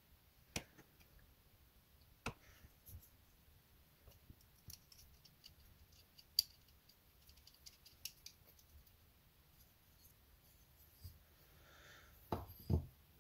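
Faint, scattered small clicks and light taps of a screwdriver and small knife parts being handled while a screw is driven into the handle of a Spyderco Paramilitary 2 folding knife. Two louder knocks come near the end.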